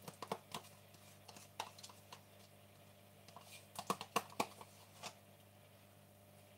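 Scattered light clicks and taps of a utensil against a stainless steel saucepan as quark is scooped into the pan. A few sharper knocks come close together about four seconds in.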